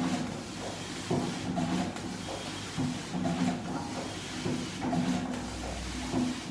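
Sheet-cutting machine running through its working cycle: a humming mechanical note that swells and fades in a regular rhythm, roughly once a second, over a steady background noise.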